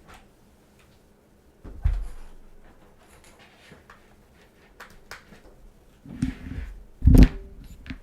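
Scattered keystrokes on an Iron165 R2 mechanical keyboard with Boba U4T tactile switches on a carbon-fibre plate and PBT keycaps. One press comes about two seconds in, then a group of presses from about six seconds, the loudest just after seven.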